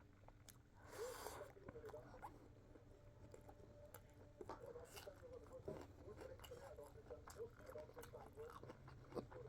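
Faint eating sounds: chewing and small scattered clicks, with a short rustle about a second in.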